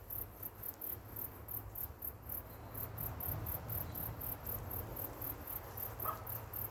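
Insect chirping: a steady train of very high-pitched pulses, about five or six a second, over a low rumble.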